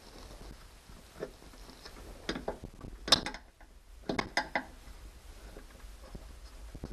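Screwdriver prying at plastic trim and clips, giving a few short bursts of clicks and scrapes, the loudest about three seconds in and another cluster about a second later.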